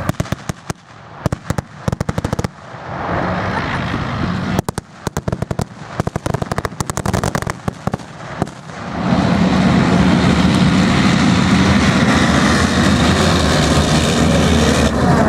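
Rapid strings of sharp bangs as a row of explosive charges detonates across the field, standing in for indirect fire. From about nine seconds in, the steady loud rumble of a tracked infantry fighting vehicle's engine and tracks driving past.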